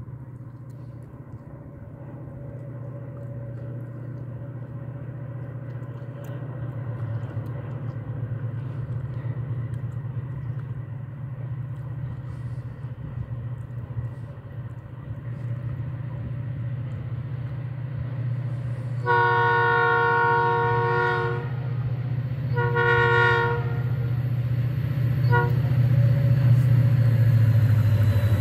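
ONCF diesel locomotive DH 430 approaching with its engine rumble growing steadily louder. Its horn sounds a long blast and then a shorter one about two-thirds of the way through, followed by a brief toot.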